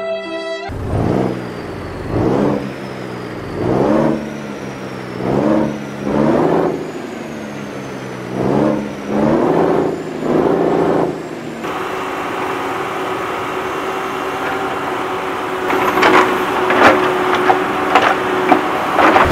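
Vehicle engine revving in a series of about eight swells, each rising then falling in pitch. It then settles into a steady running hum, with a run of sharp clicks and knocks near the end.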